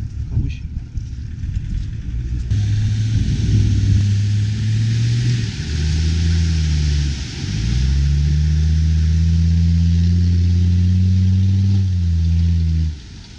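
Diesel Land Rover Discovery engine revving hard under load as it ploughs through deep muddy water, with a steady hiss of splashing water. The engine note dips about halfway through, then climbs slowly for several seconds before dropping away suddenly near the end.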